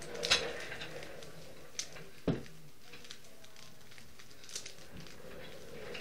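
A plastic Rubik's cube being turned by hand: scattered clicks and clacks of the layers twisting, with one louder knock a little over two seconds in.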